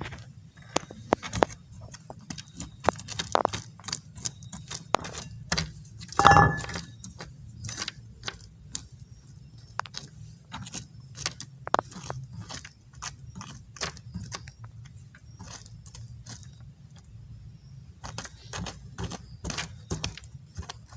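Irregular clicks, taps and small rattles of hard objects being handled and moved, with one louder knock that rings briefly about six seconds in, over a steady low hum.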